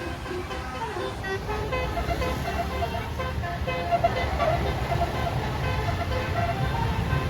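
A tour bus's multi-note basuri 'telolet' horn plays a quick tune of short notes, each at a new pitch, over the low rumble of the bus's diesel engine.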